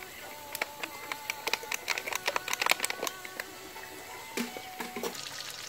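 Fat crackling and popping on a hot tabletop grill-and-hotpot pan as pork and bacon cook: a run of sharp, irregular pops, thickest in the middle and thinning out toward the end.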